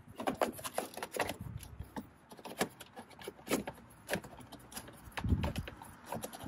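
A cover being handled and fitted back into place: a string of irregular clicks and knocks.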